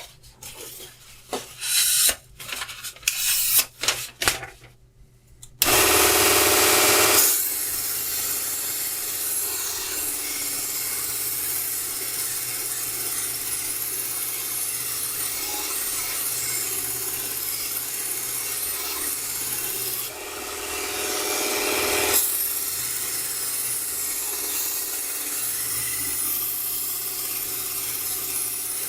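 Mini belt grinder sharpening a knife: after a few seconds of short irregular scrapes, the abrasive belt runs against the blade with a steady rasping hiss over a low motor hum, louder for a moment about six seconds in and again about twenty seconds in.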